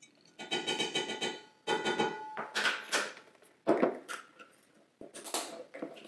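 A measuring spoon knocking and scraping in a stainless steel mixing bowl, making the bowl ring in two short bursts, followed by several brief knocks and scrapes.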